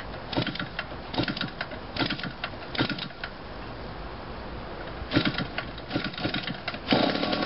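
Small two-stroke gasoline model-aircraft engine turned over by hand-flipping its propeller: short bursts of clicks and pops at each flip, about one a second, without catching. Near the end the engine runs steadily with a dense rattle.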